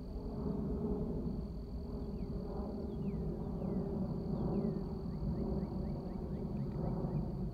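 Jet engines of a four-engine Boeing 747-400 airliner passing overhead on approach to land, heard from the ground as a steady low rumble.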